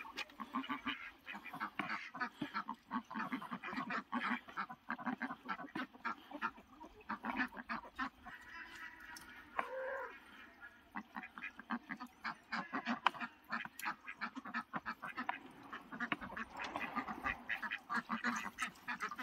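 Domestic ducks quacking continuously as a flock, with some goose-like honking mixed in, alongside the knock and scrape of a wooden stick stirring wet feed in a plastic bucket.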